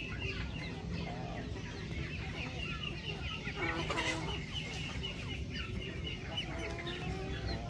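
A flock of chickens clucking and calling, with a continual run of short high cheeping calls and occasional lower clucks.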